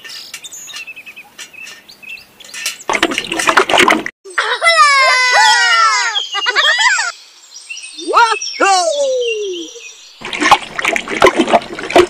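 A run of high gliding tones, several stacked together, falling in pitch from about four seconds in, then two more falling glides. Near the end, water splashes and runs as it is poured out of a tiny bucket.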